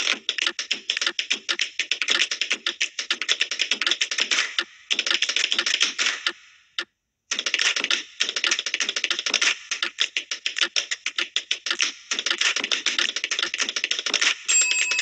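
Rapid, dense clicking like fast typing on a keyboard, with a brief break about seven seconds in. A steady buzzer tone starts just before the end.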